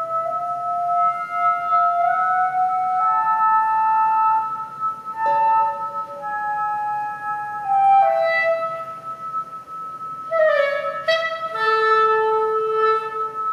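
Clarinet playing slow held notes that step up and down, over a steady high electronic drone. About ten seconds in the clarinet breaks into a quick run of bright notes that falls away, then holds a lower note.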